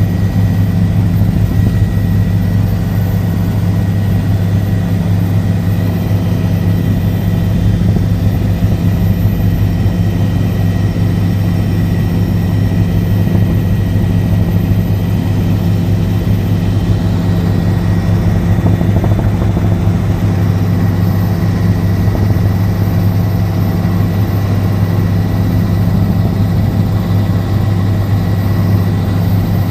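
Helicopter in steady flight: a loud, even drone of rotor and engine with a strong low hum and a faint high whine above it.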